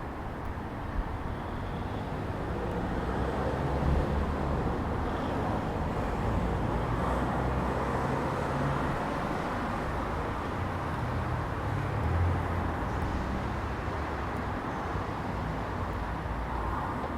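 Steady outdoor background noise, a low rumble like road traffic, with no distinct gull calls standing out.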